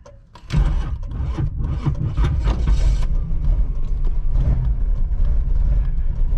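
1985 Oldsmobile Cutlass Supreme engine with a new carburetor and large headers starting about half a second in: it catches unevenly for a couple of seconds, then settles into a loud, steady idle with a deep exhaust rumble.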